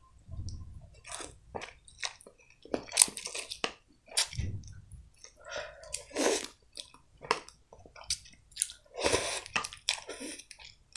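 Close-up eating sounds of instant tom yum cup noodles: noodles slurped off chopsticks and chewed, with wet mouth clicks and smacks. The sounds come in short uneven bursts, a few of them longer slurps.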